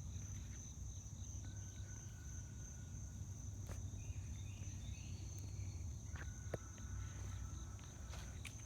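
Insects trilling steadily in one continuous high-pitched drone, with a low rumble underneath and a few faint clicks.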